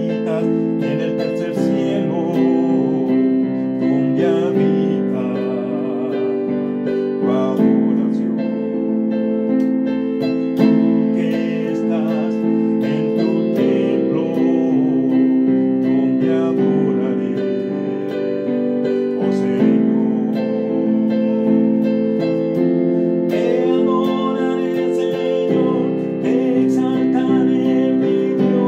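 Portable electronic keyboard played with both hands: sustained chords and a melody that change every second or two, with a man's voice singing along in places.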